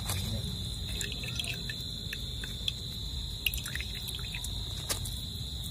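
Whey dripping through a mesh strainer of fresh chhena into a glass jar below, in quick faint drops, while a steel spoon presses the curd against the mesh, with a few light clicks of the spoon, the sharpest about five seconds in. A steady faint high whine runs underneath.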